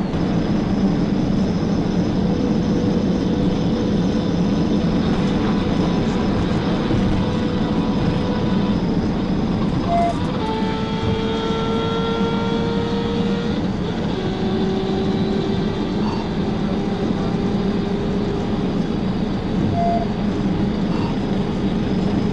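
Police cruiser at about 120–130 mph, a steady loud din of engine, tyre and wind noise heard from inside the car. A few thin steady whining tones come and go about halfway through.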